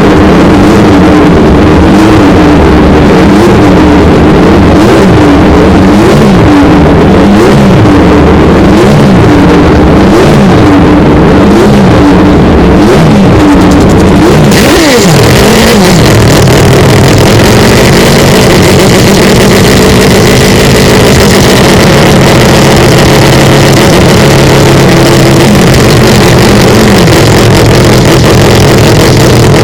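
Mazda 787B's four-rotor rotary engine revving up and down repeatedly, played so loud that it is distorted. About halfway through the sound changes abruptly: a loud high hiss comes in and the engine pitch holds steadier.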